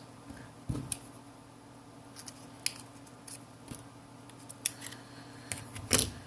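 Scattered small sharp clicks and taps of hand repair tools working the sensor flex cable free inside a smartphone, the loudest about six seconds in, over a faint steady hum.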